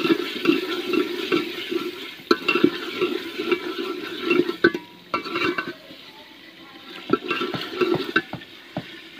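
A steel ladle stirs wet, frying chicken masala in a metal pot: a sloshing, scraping sound, with sharp clicks here and there as the ladle knocks against the pot.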